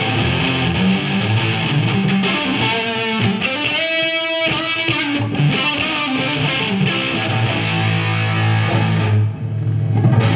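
Electric guitar played through a Marshall JVM410 valve amp, working again after its valve change and bias: continuous riffing with one held note about four seconds in and low, repeated chugging notes near the end.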